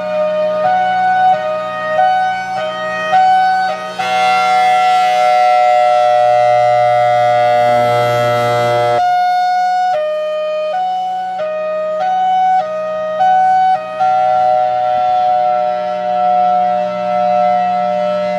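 Federal Signal Thunderbolt 1003 civil defense siren sounding its hi-lo signal: two tones alternate about every two-thirds of a second, with stretches where one tone holds steady, over a constant low drone.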